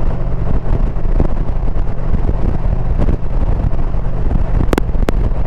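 2022 Indian Pursuit's V-twin engine running steadily under way, with wind rushing over the microphone. Two short sharp clicks come near the end.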